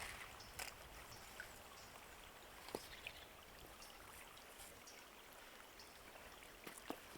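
Faint trickle of a small woodland stream running low, with a few scattered sharp clicks.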